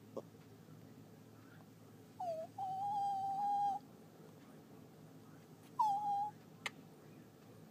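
A Chihuahua whining in protest at being kissed. A short whine about two seconds in runs into a steady, high-pitched whine lasting about a second, and another short whine comes near the six-second mark.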